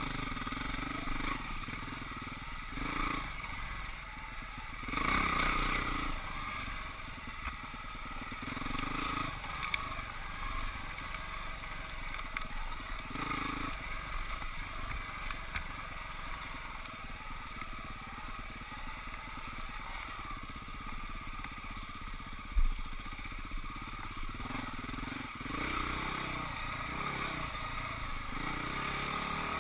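Husqvarna 449 dirt bike's single-cylinder four-stroke engine running on a trail ride, the revs rising and falling, with one sharp knock partway through.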